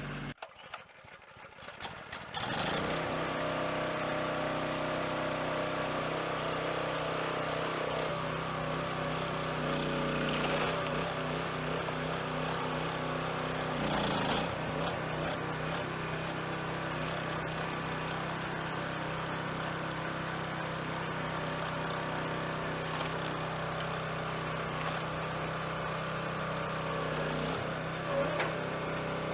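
Log splitter's new small gasoline engine running steadily at a constant speed, coming in about two seconds in.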